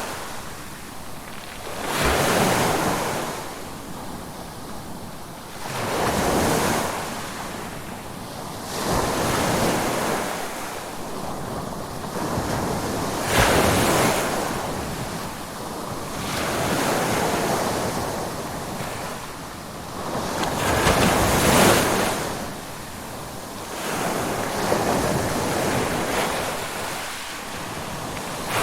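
Ocean waves breaking and washing in one after another, each surge swelling and then fading, about every three to four seconds.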